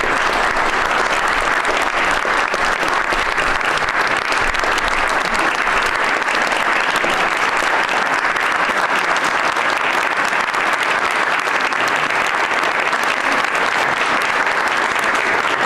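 An audience applauding, with dense clapping that holds at a steady level.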